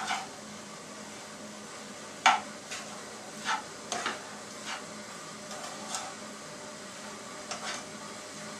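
A spoon stirring pieces of capsicum (green bell pepper) in a nonstick frying pan. It knocks and scrapes against the pan several times, loudest about two seconds in, over a faint steady sizzle from the vegetables cooking in their own water.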